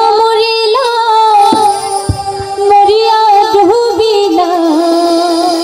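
A woman sings a Bengali song live into a microphone over a PA: one long, ornamented melody line that bends and wavers, with a few low drum strokes near the middle.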